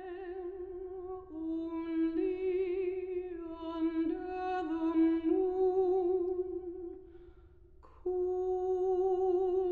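A wordless voice humming long held notes with a slight vibrato, stepping a little in pitch from note to note. It fades near the end and comes back in suddenly on a new held note about eight seconds in.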